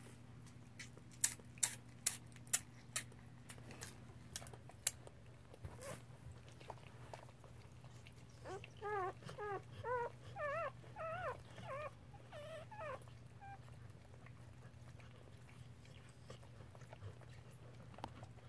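Newborn standard poodle puppy squeaking: a quick run of about ten short, wavering cries lasting four or five seconds, starting about eight seconds in. A few sharp clicks come before it, and a steady low hum runs underneath.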